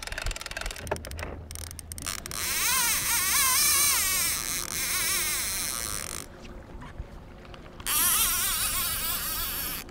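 Fishing reel's ratchet buzzing as a hooked kingfish pulls line off the spool, its pitch wavering up and down with the speed of the fish's run. It starts about two seconds in and runs for about four seconds, stops, then buzzes again near the end.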